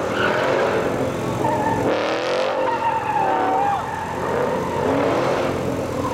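Ford Mustang RTR drift car sliding sideways, its engine revving up and down over screeching tyres. A high tyre squeal holds from about a second and a half in to near four seconds.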